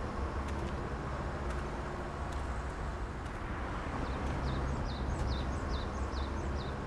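Quiet outdoor ambience with a steady low rumble. From about four seconds in, a small bird calls in a run of short, high, falling chirps, roughly two a second.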